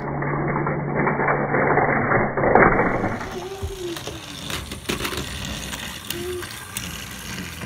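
A noisy hum for about three seconds, then irregular clicking and clattering of toy trains on a wooden track.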